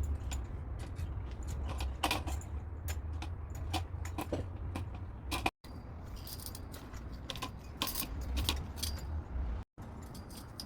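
Metal parts of a bird feeding station clinking and rattling as it is handled and assembled, with many sharp clicks and knocks over a low rumble. The sound cuts out briefly twice.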